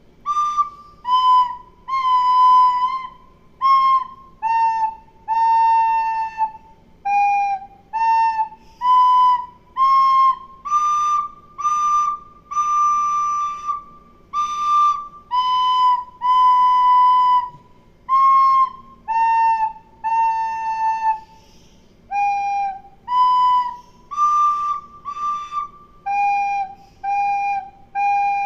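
Suling, an Indonesian bamboo flute, playing a slow melody in separate notes within a narrow middle range. Each note is held half a second to a second and a half, with short breaks between them.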